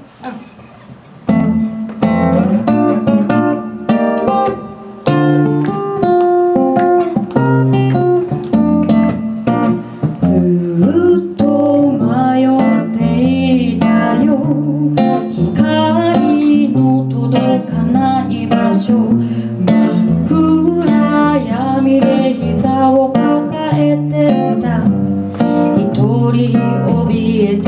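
Acoustic guitar playing with a woman singing into a microphone, a live guitar-and-vocal duo. The music comes in about a second in.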